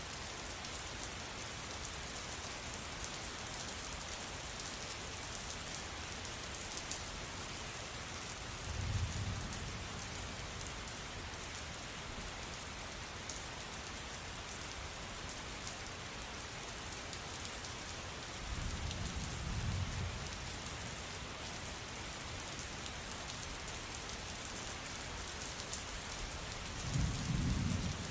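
Steady rain falling on a surface, with three brief low rumbles of distant thunder about nine, nineteen and twenty-seven seconds in.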